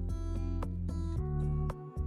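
Background music: a guitar-led instrumental with a steady beat and a chord change about a second in.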